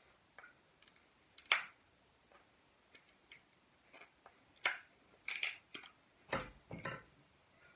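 Crab or lobster shell being cracked and pulled apart by hand: irregular sharp cracks and crunches, louder ones about a second and a half in and again from near the middle toward the end.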